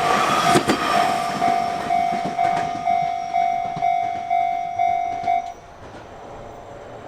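Japanese level-crossing warning bell ringing its repeating 'kan-kan' tone about twice a second, then cutting off suddenly about five and a half seconds in. Train wheels clack over rail joints during the first second.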